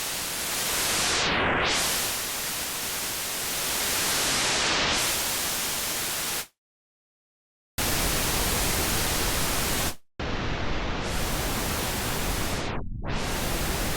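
Synthesizer noise source in Native Instruments Massive X playing a steady full-range hiss, sounded as three held notes with two short breaks. Its top end sweeps down and back up a few times, most deeply near the end.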